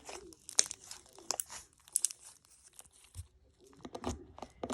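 Crunchy homemade slime being squeezed and pressed by hand, giving a series of irregular crackling pops and clicks.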